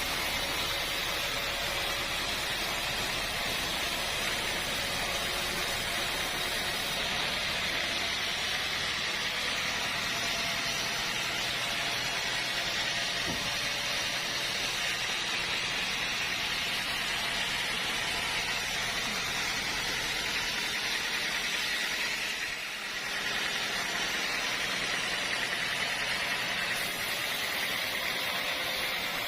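Sawmill machinery running steadily: a constant hissing noise with a faint hum under it, dipping briefly about two-thirds of the way through.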